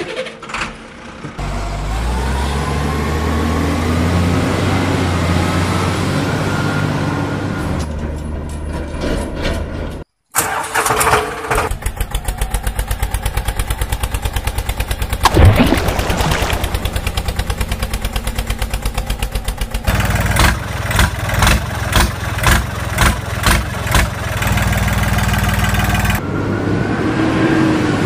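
Vehicle engine sounds, added as effects: a truck engine runs steadily with its pitch slowly rising, and cuts off about ten seconds in. A tractor engine then starts and chugs in rapid even beats, with a loud knock about halfway, slowing to an uneven loping beat before a steady engine sound returns near the end.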